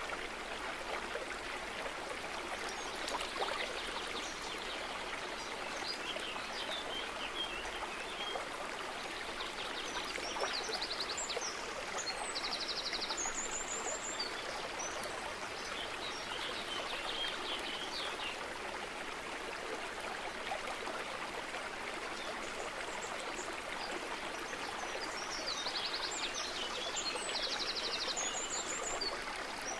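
Running stream ambience, a steady rush of flowing water, with bird chirps and short rapid trills at intervals.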